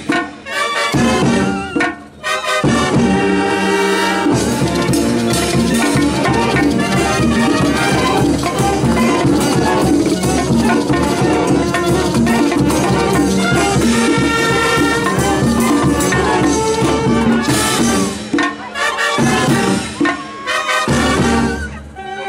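Brass band playing, with trumpets and tubas over drums, cymbals and shakers. The music drops out briefly twice near the start and again twice near the end.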